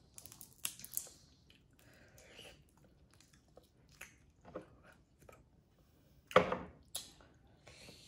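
Boiled crawfish being peeled by hand close to the microphone: scattered small cracks and crunches of the shell with wet, squishy sounds of the meat. The loudest crack comes a little after six seconds in, with another just after.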